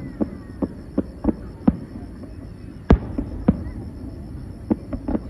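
Fireworks bursting overhead: a quick, irregular run of sharp bangs, about a dozen, the loudest about three seconds in.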